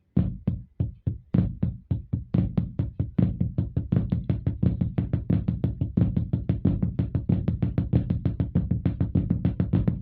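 Drum played with sticks in a repeating flam–right–left–left lick, loud accented strokes mixed with quieter left-hand ghost notes. It starts abruptly and settles into a steady, fast rhythm after about two seconds.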